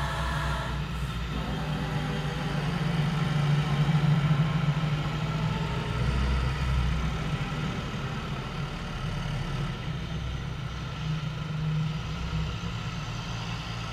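Diesel tractor engines running as a line of tractors drives past one after another, the rumble swelling loudest about four seconds in as a large tractor passes close.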